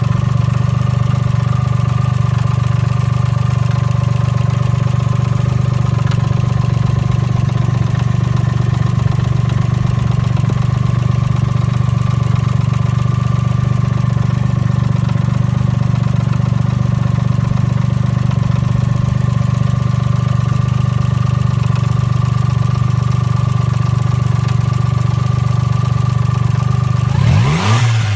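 Suzuki Cappuccino's small three-cylinder turbo engine idling steadily, with a strong low hum and a constant higher whine. Near the end the throttle is blipped and the revs climb quickly.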